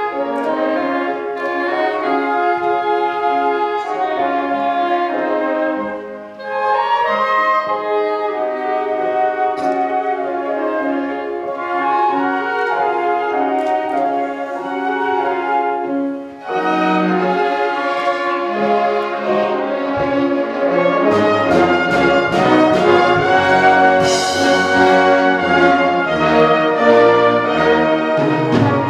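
A youth orchestra of strings, clarinets and brass with tuba plays a Christmas piece. The music breaks off briefly about six and sixteen seconds in, then the full ensemble grows louder from about twenty-one seconds.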